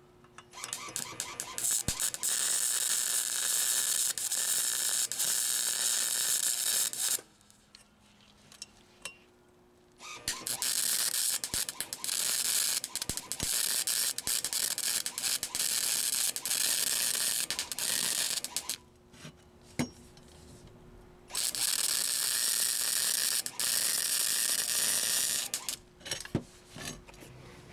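Flux-core MIG welder arcing on a steel exhaust pipe, welding around a sleeved joint: a steady crackling sizzle in three runs of several seconds each, with short pauses between them as the welder stops and repositions.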